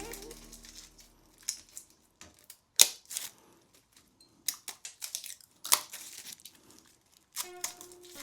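Old handlebar tape and cable housing being cut with a knife and pulled off drop bars: irregular sharp snaps, rips and rustles with short quiet gaps, the loudest about three seconds in.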